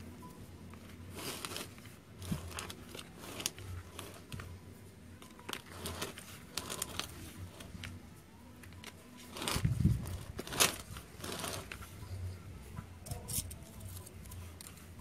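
Hands rustling and pressing dry, fibrous potting media and roots around an adenium in a plastic pot, with scattered crackles and a few louder bumps about two-thirds of the way through.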